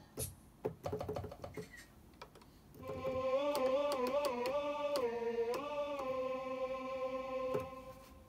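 Roland Sound Canvas SK-88 Pro keyboard being played: a quick run of short notes at first, then about three seconds in a sustained voice-like synth tone that moves between a few neighbouring pitches and is released near the end.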